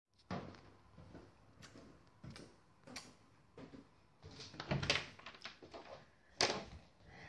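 Irregular footsteps and knocks on a wooden staircase. The loudest come about five seconds in and again a second and a half later.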